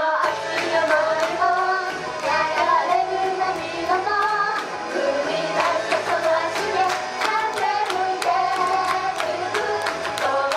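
Female idol group singing live into handheld microphones over a pop backing track with a steady beat, played through a PA.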